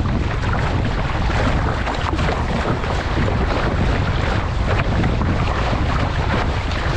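Water rushing and splashing along the hull of an RS600 dinghy sailing at speed, with steady wind noise on the deck-mounted microphone.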